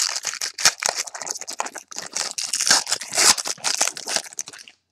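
Foil trading-card pack wrapper being torn open and crinkled by hand: a dense, continuous crackling rustle that stops abruptly near the end.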